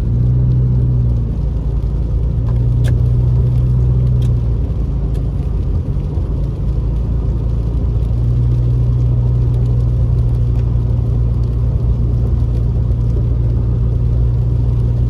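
Car driving on a wet road, heard from inside the cabin: a steady low engine and road rumble with tyre noise. The engine hum eases for a few seconds in the middle, then comes back.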